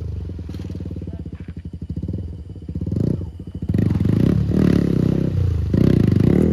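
Motorcycle engines running steadily, then revved hard in several rising bursts from about halfway through, as the riders try burnouts with their rear wheels in shallow water.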